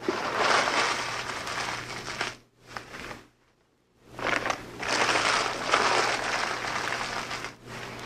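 Newspaper being crinkled and crumpled by hand, played back from an old cassette tape. It comes in two long spells, with a brief rustle in the short pause between them.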